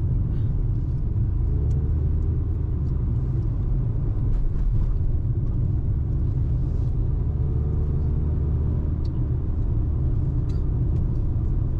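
Steady low rumble of a car's engine and tyres on the road, heard from inside the cabin while driving, with a few faint ticks.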